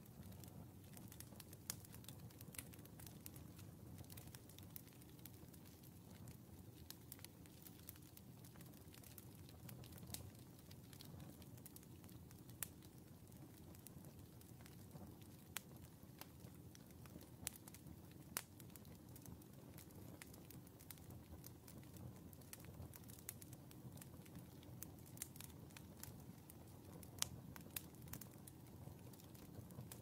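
Split wood logs burning in a fireplace: a faint low rush of flame under frequent, irregular sharp crackles and pops from the burning wood, with one louder pop near the end.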